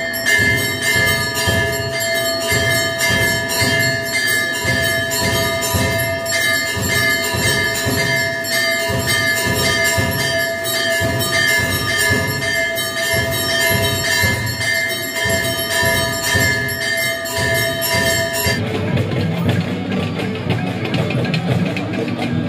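Temple bells rung rapidly and without pause for the lamp offering (aarti), a bright clanging ring over a fast low beat. It cuts off sharply about eighteen seconds in and gives way to music and voices.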